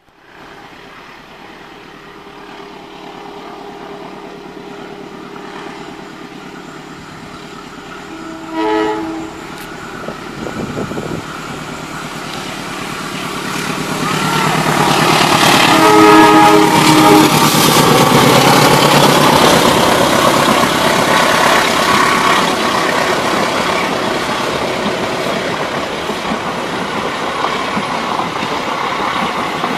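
Diesel-hauled passenger train approaching. The locomotive sounds its horn twice: a short blast about eight seconds in and a longer, louder one about sixteen seconds in as it draws close. Then comes the loud steady rumble and clatter of the carriages passing.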